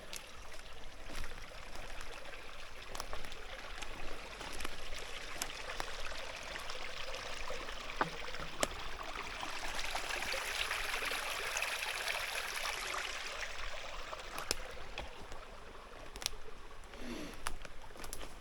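Stream water running and trickling as a steady rush, swelling for a few seconds around the middle. Scattered short clicks and knocks sound over it.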